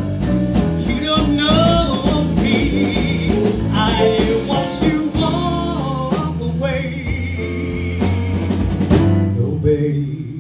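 A live band of drum kit, electric guitar and keyboard plays the closing bars of a slow ballad, with a male singer's voice over it.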